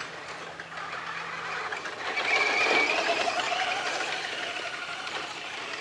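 Slash short-course RC truck driving around a dirt track. Its motor and gears whine, rising and falling in pitch with speed, loudest about two and a half seconds in as the truck passes closest.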